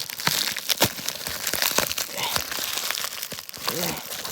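A package's wrapping being torn and crumpled open by hand: a dense run of crinkling with many sharp crackles and rips.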